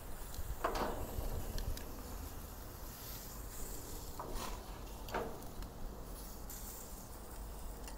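A few short knocks and clicks over a steady low rumble, as steaks are handled and lifted off a grill.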